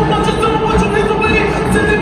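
Show-style HBCU marching band playing in a stadium: brass holding loud chords over a steady stream of drum hits.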